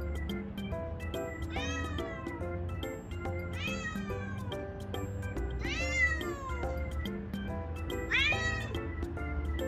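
A calico cat giving four drawn-out meows a couple of seconds apart, each falling in pitch at the end, calling out at something it sees outside on the balcony. Background music with a steady beat plays under the calls.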